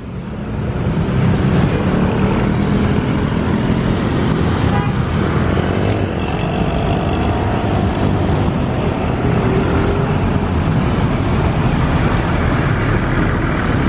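Steady road traffic passing close by, a city bus and motorcycles, heard as a low engine rumble that swells about a second in and then holds.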